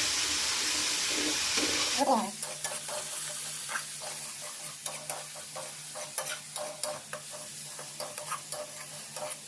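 Onion-and-garlic sauce with soy and tomato sauce sizzling hard in a hot pan, cutting off abruptly about two seconds in; a spatula then stirs and taps against the pan in many short scrapes and clicks over a faint steady hum.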